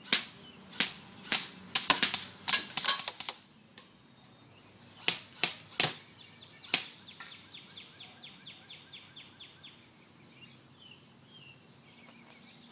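Airsoft guns firing single sharp shots, a dozen or so, with a quick run of shots about two to three seconds in and a few more spaced out up to about seven seconds. Faint rapid ticking follows for about three seconds.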